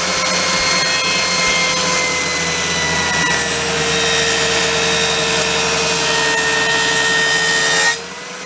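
Circular saw mounted under a homemade table saw, running loudly for a test cut through timber. Its motor hum sags slightly in pitch partway through as the blade takes the load, and near the end the cutting noise drops away sharply while the motor keeps running.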